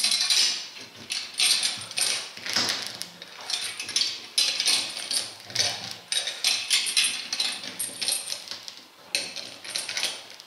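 Tread rubber of an Omsk OI-25 Ural truck tyre being torn off the carcass in a series of short ripping pulls, about one or two a second, with clinks from the steel pliers and chain used to grip the strip.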